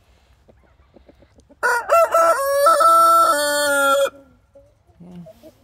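A Brahma rooster crowing once, loud and close, starting about a second and a half in and lasting about two and a half seconds.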